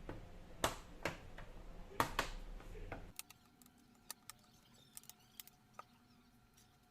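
Clicks and knocks from an Asus TUF FX506L laptop's bottom cover being handled and fitted back on. There are four louder knocks in the first three seconds, then scattered light ticks.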